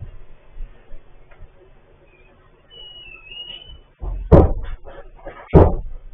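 Two loud thumps about a second and a half apart, with a few lighter knocks between them, after a faint brief high squeak.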